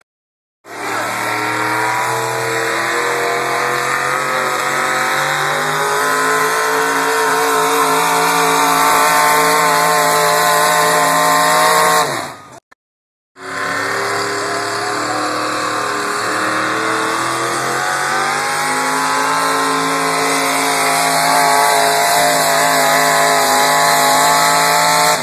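Pickup truck engines running hard under load as they drag a pulling sled: two pulls of about twelve seconds each, the engine note held high and fairly steady with slow swells in pitch, split by a short break about twelve seconds in.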